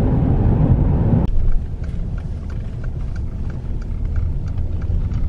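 Car road noise heard from inside the cabin while driving: a steady low rumble that drops to a quieter level about a second in, with faint light ticks over it.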